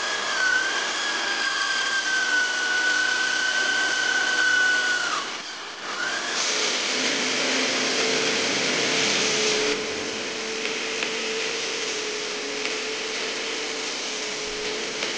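Power drill spinning a round scrub brush on upholstery fabric, a steady high whine that stops about five seconds in. Then a wet-extraction vacuum's suction hiss with a steady hum as its upholstery wand is drawn over the sofa seat, loudest for a few seconds before it settles.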